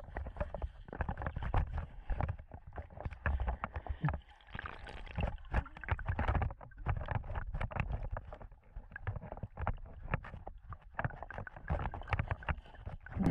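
Water moving and sloshing as heard by a camera held underwater, with a low rumble and many irregular knocks and clicks from handling as the spearfisher grips a speared fish.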